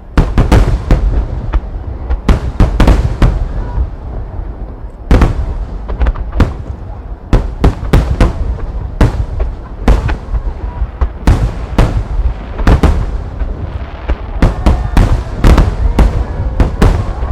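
Aerial firework shells bursting in a rapid barrage: sharp, loud bangs come two or three a second over a continuous low rumble of echoes, thinning briefly about four seconds in before building again.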